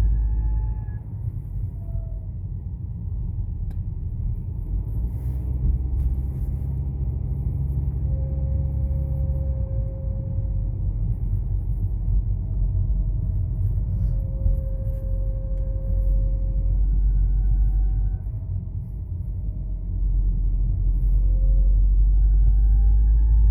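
BMW E90 3 Series car with a steady low rumble, over which faint whining tones glide up and down and come and go. The owner cannot say what this strange noise is.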